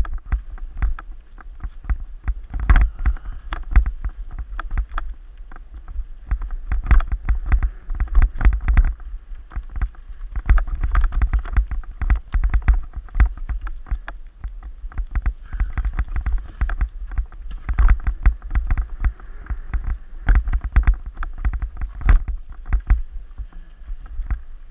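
Mountain bike jolting over a rocky, rooty forest singletrack, heard through a bike-mounted GoPro Hero 3: a constant run of irregular knocks and rattles over a deep rumble.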